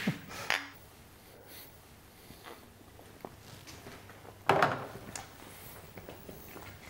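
Quiet kitchen room tone with a few light clicks from kitchenware being handled, and one louder clatter about four and a half seconds in.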